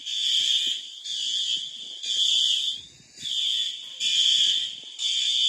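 Fire alarm sounding: a loud, high-pitched electronic beep repeating about once a second, each beep lasting a little over half a second.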